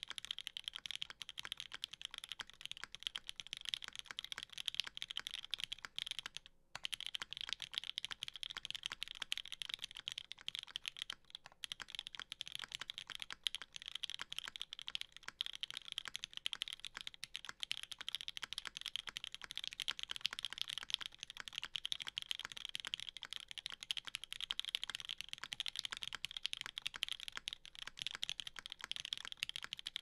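Custom GS60 mechanical keyboard typed on fast and continuously: Gateron CJ linear switches lubed with Krytox 205g0 in a UHMWPE plate, under GMK doubleshot ABS keycaps, a dense stream of keystrokes. The typing breaks off briefly about six and a half seconds in, and again around eleven and a half seconds.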